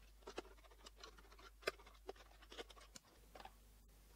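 Faint, scattered clicks and light scrapes of a small plastic projector housing being handled, turned over and its top cover worked loose, the sharpest click about a second and a half in.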